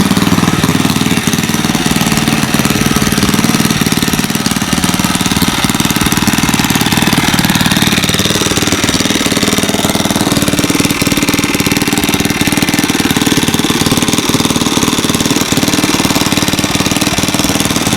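A small engine-driven construction machine running steadily and loudly, with a fast, even knocking beat.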